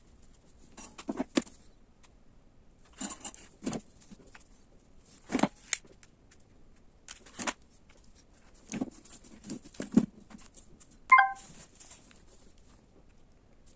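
Scattered knocks and clicks, about a dozen at irregular intervals, of objects being handled or set down. About eleven seconds in there is one short, pitched beep-like sound, the loudest thing heard.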